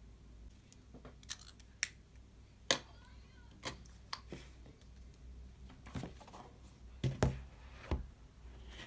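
Scattered light clicks and taps, about a dozen at irregular intervals, of small objects being handled and set down.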